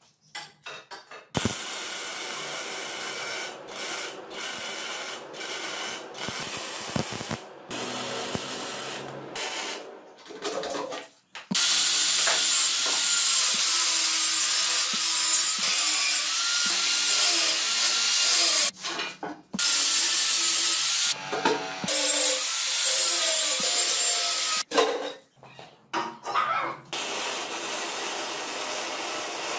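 Metalworking on a steel frame: scraping and rubbing from hand work, then a power tool running for about twelve seconds with a wavering whine, then more short scraping sounds.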